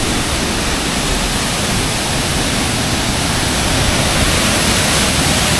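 A large waterfall pouring: a steady, loud rush of falling water.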